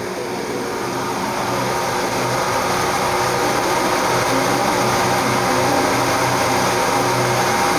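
Steady mechanical drone with a low hum, growing louder over the first few seconds and then holding steady.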